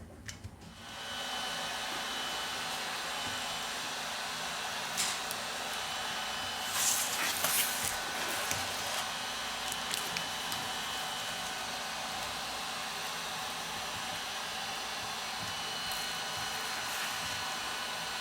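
Steady blowing noise of a small electric blower, switching on about a second in and running evenly, with a few light clicks of tools on the device.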